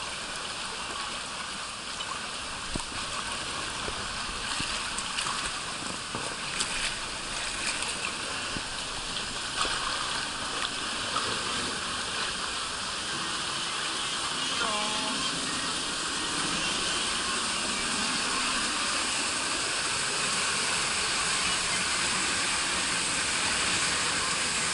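Water rushing and sloshing around an inner tube drifting along a shallow water-slide channel, a steady flow that grows a little louder toward the end.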